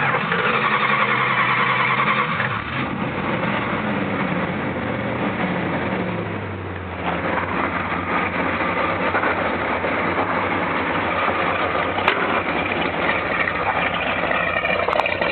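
A 1967 Plymouth GTX's 440 big-block V8 running through its stock exhaust. The sound comes in suddenly; the pitch falls over the first several seconds as the revs come down, then the engine idles steadily and smoothly.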